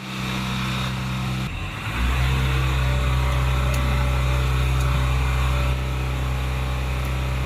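Tata 407 Gold CNG truck engine running steadily, as it is checked for a misfire. About one and a half seconds in, its note changes and it gets louder, then it runs evenly again, a little quieter near the end.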